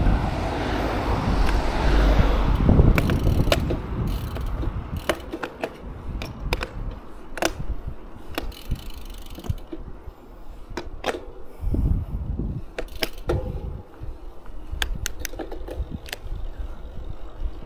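Bicycle clicking and rattling: a string of irregular sharp clicks from the bike's moving parts. Wind rumbles on the microphone for the first few seconds.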